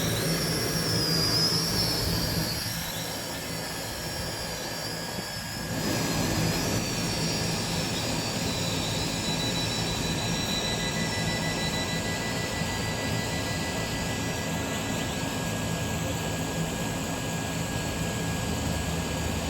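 GPTOYS F2 Aviax toy quadcopter's motors and propellers whirring in flight: a steady high whine that wavers in pitch as the drone is steered. It drops a little in level about three seconds in and picks up again at about six seconds.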